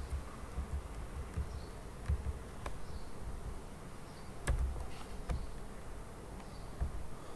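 Scattered clicks from a computer keyboard and mouse as the cell labels are typed, several sharp taps a second or so apart, over a low buzzing hum.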